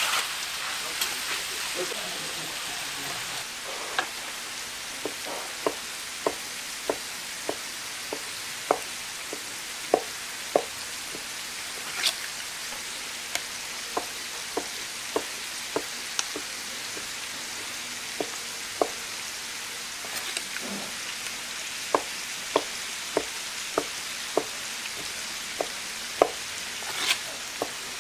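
Pork offal sizzling on a flat steel griddle, with stirring and scraping clatter at first. From about four seconds in, a knife chops raw pork offal on a wooden cutting board in a run of sharp knocks, about one or two a second with short pauses, over the steady sizzle.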